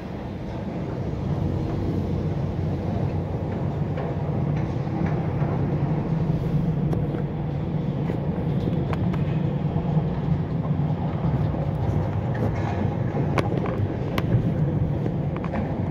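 Steady low rumble of a vehicle driving slowly along a city street, heard from inside it, with a few faint clicks.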